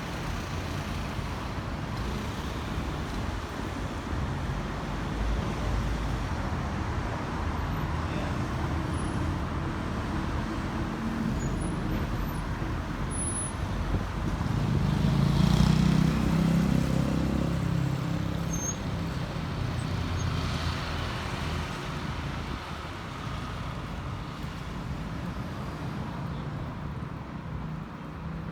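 Road traffic, a steady hum of passing vehicles. About halfway through a louder vehicle passes close by with a low engine drone, then fades away.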